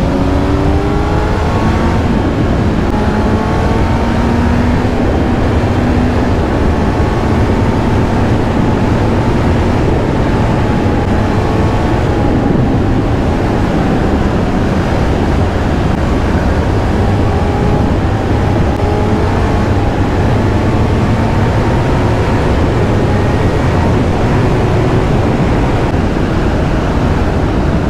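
Kawasaki Z900's inline-four engine running under way, its pitch climbing slowly through long pulls and dropping back at each gear change, over a strong rush of wind noise.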